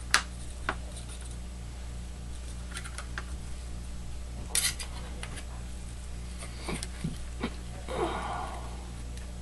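Scattered light clicks and taps of mirror strips and artboard pieces being handled and fitted together on a work mat, over a steady low hum.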